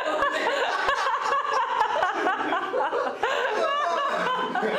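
People laughing, a man's hearty laughter among them, with chuckling and snickering running through.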